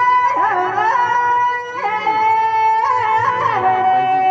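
Folk music led by a reedy melody instrument playing long held notes, moving to a new pitch roughly once a second, with fainter wavering tones beneath.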